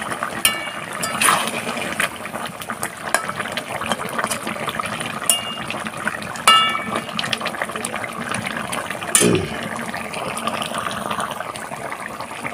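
Chicken curry boiling hard in a wide metal kadai, a steady bubbling and crackling. A metal spatula strikes the pan a few times with short ringing clinks, and there is one duller knock about nine seconds in.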